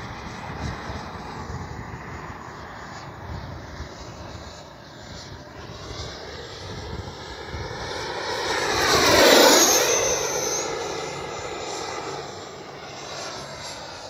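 Electric ducted-fan whine of an E-flite 80 mm F-16 Thunderbirds RC jet in flight. It swells as the jet passes close and fades again, loudest a little past halfway.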